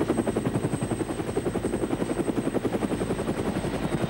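Helicopter rotor blades chopping in a rapid, even beat.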